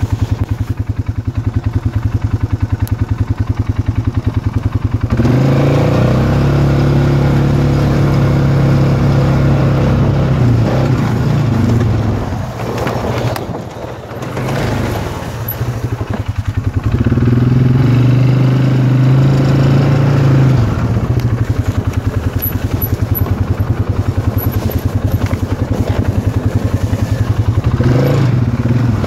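Polaris 570 ATV's single-cylinder engine running with a steady pulsing beat, then revving up about five seconds in and pulling under throttle. It eases off briefly around the middle, then picks up again.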